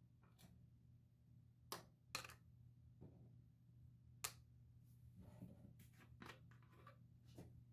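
Faint workbench handling sounds from taking apart a machinist caliper: three sharp clicks, then light scraping and rustling, over a low steady hum.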